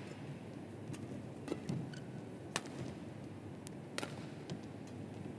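Badminton rackets striking a shuttlecock in a rally: sharp pops about a second apart over a steady hall hum.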